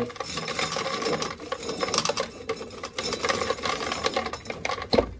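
Gusting wind heard from inside a building, rattling and clattering loose parts of the walls and roof in waves, with one sharp knock near the end.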